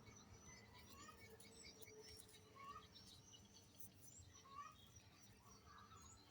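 Faint birds chirping, with many short calls scattered throughout over a low background hum.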